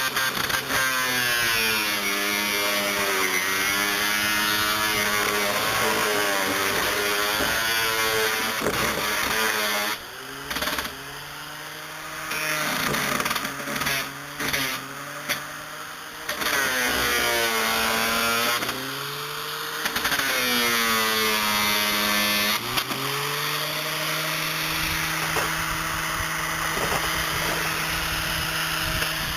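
7-inch high-speed grinding wheel cutting into wooden boat stringers. The motor's pitch repeatedly sags and recovers as the wheel bites in and lets off, then it spins steadily near the end.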